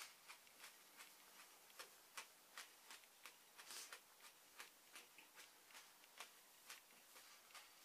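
Faint, crisp crunches of a raw onion being chewed, about two or three a second in a fairly steady rhythm.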